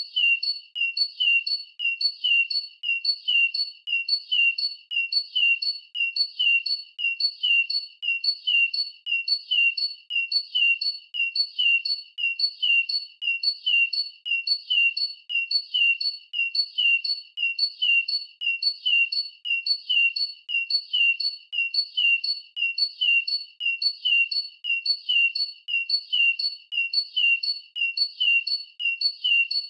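A bird's short, high chirp repeated at a very even pace, about two chirps a second, each one identical.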